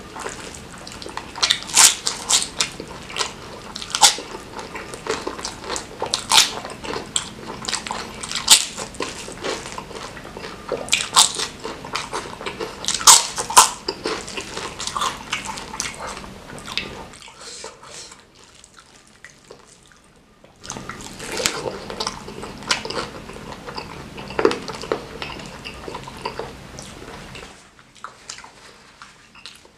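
Close-miked eating by hand: wet chewing and smacking, with fingers squishing through rice soaked in curry sauce. There are many irregular sharp wet clicks, which ease off for a few seconds past the middle and again near the end.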